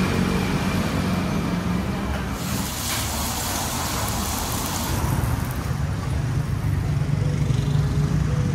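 Road traffic: vehicle engines running and passing close by with a steady low rumble. A few seconds in there is a hissing burst lasting about two and a half seconds.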